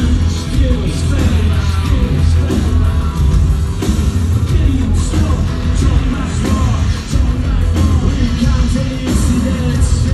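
Live industrial band playing loud and continuously, with sung and shouted vocals over a heavy, steady low bass.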